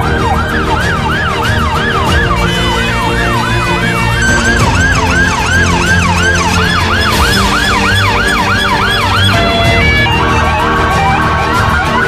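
Emergency vehicle sirens on a fast yelp, quick rising-and-falling sweeps about three a second, with a second siren overlapping partway through. About ten seconds in the sound changes to a stepped tone pattern.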